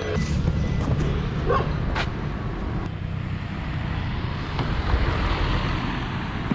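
Car engine running steadily, with a few light clicks.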